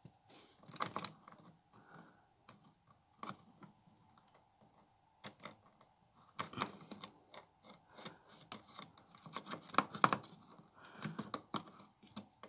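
Light clicks and metal taps from hands handling a clothes dryer's aluminium motor-start capacitor, its mounting nut and its metal bracket. The taps are irregular, with a few early on and a busier patter in the second half.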